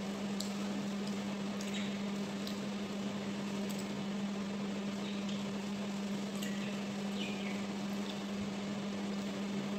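Someone eating with her fingers: faint chewing and small scattered mouth and dish clicks over a steady low hum.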